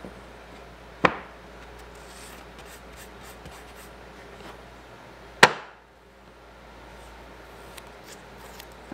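Two sharp wooden knocks as mitered hardwood frame pieces are handled and set against the workbench, the second, about five seconds in, the louder. Faint rustling and light ticks of handling and tape between them.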